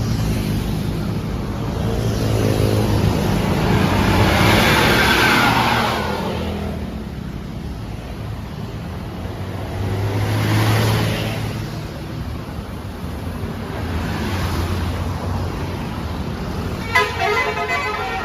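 Large buses drive past with their diesel engines running, two passes swelling and fading a few seconds apart. Near the end a multi-tone basuri 'telolet' musical air horn starts sounding.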